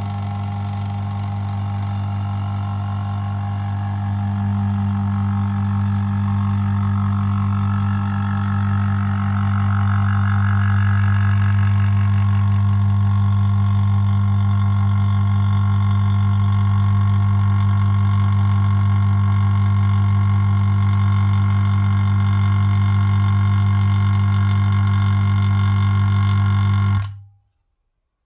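Vacuum pump running with a steady, loud low hum while it pulls a vacuum on the test chamber; it stops abruptly near the end.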